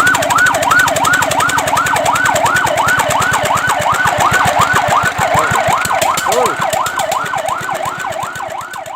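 Fire truck siren in a fast yelp, its pitch sweeping up and down about three times a second, fading over the last couple of seconds.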